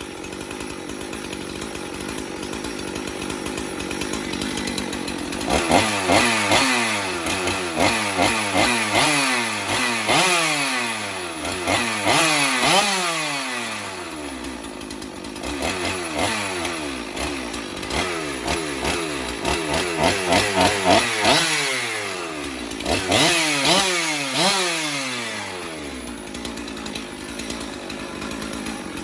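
Old two-stroke chainsaw idling steadily, then blipped on the throttle again and again in three spells, the engine pitch climbing and falling with each rev, dropping back to idle between spells. The owner thinks the carburetor may need adjusting because it runs up really high.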